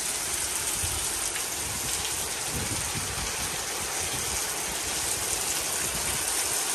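Heavy, steady rain, with water pouring off the edge of a porch roof and splashing onto the lawn. Low gusts of wind buffet the microphone about a second in and again around the middle.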